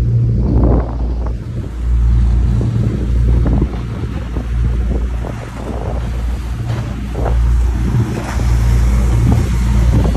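Wind buffeting the microphone in uneven gusts aboard a moving boat, over the rush of the boat's engine and wake.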